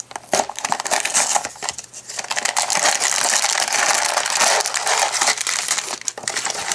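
A small cardboard LEGO box being opened by hand while a plastic bag of LEGO bricks crinkles and rattles as it is handled. It makes a continuous, irregular rustle full of small clicks.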